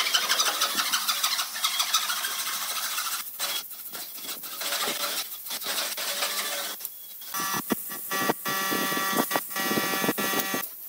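A wooden frame bow saw cutting through a board by hand, a steady rasping of back-and-forth strokes. About seven seconds in it gives way to metallic scraping with a ringing tone, a file worked against steel.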